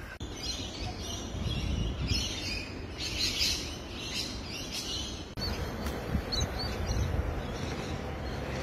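Small birds chirping and twittering over a low outdoor rumble. About five seconds in, the background changes abruptly to a steadier rumble, with a few more chirps after it.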